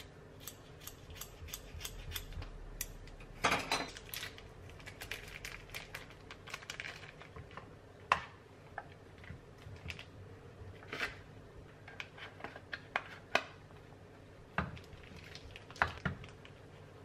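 Kitchen scissors snipping a plastic cheese wrapper, with a burst of wrapper crinkling about three and a half seconds in. After that, scattered sharp clicks and knocks as a stainless steel Microplane grater is handled on a wooden cutting board.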